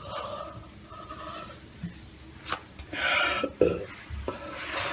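A person's soft throat and mouth sounds: a quiet drawn-out low sound at the start, then a breathy hiss about three seconds in and a few small clicks and knocks.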